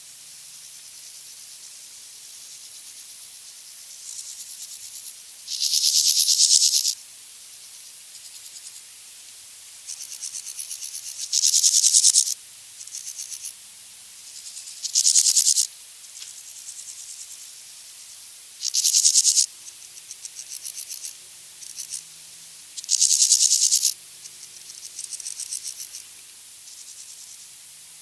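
Grasshopper stridulating: loud, high-pitched buzzing bursts about a second long, about five of them spaced three to four seconds apart, with softer, shorter chirps in between.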